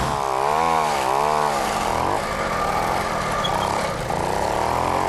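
Puch moped's small two-stroke engine revving up and down several times as it pulls away, then rising to a steadier, higher note near the end.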